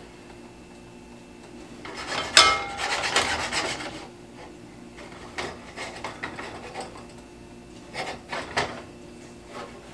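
Silicone spatula scraping and pushing egg around a stainless steel skillet, with a sharp knock against the pan about two seconds in. A few shorter, lighter scrapes and taps follow.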